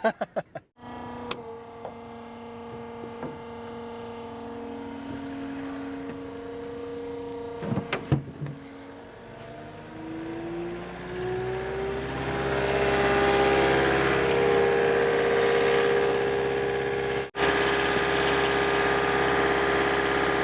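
Diesel engine of heavy construction equipment idling steadily, with a few knocks, then speeding up about ten seconds in with a rising pitch and settling at a higher, louder steady speed.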